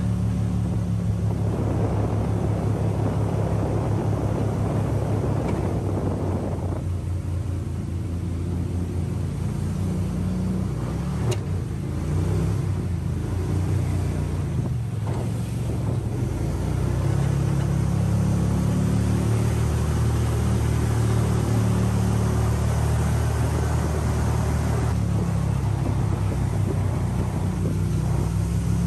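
Gator Tail surface-drive mud motor running steadily under way, pushing an aluminium crawfish skiff. A rush of water noise sits over the first several seconds; the motor eases off about eight seconds in and picks up again later on.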